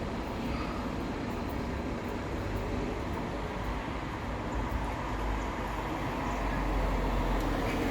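Low, steady rumble of a running vehicle engine, swelling slightly in the lowest range near the end.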